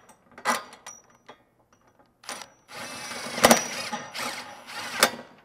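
Cordless impact driver running a body bolt up into a steel rock slider: a short burst about half a second in, then a longer run of about two seconds from near the middle, loudest as it drives the bolt home, and a sharp click near the end.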